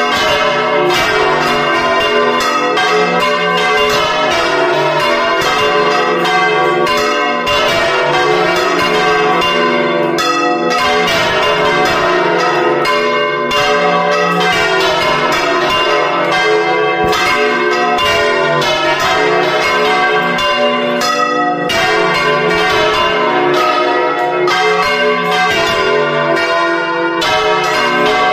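Bronze church bells swung full circle in a Valencian volteig, several bells of different sizes ringing together in a dense, unbroken peal of overlapping strikes.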